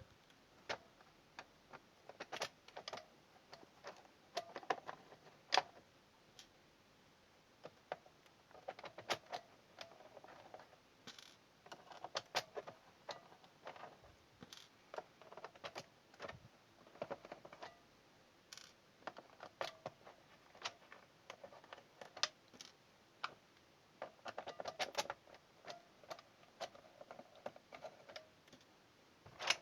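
Irregular light clicks and brief plastic clatter from handling an old mechanical keyboard's case while it is being taken apart and its screws removed.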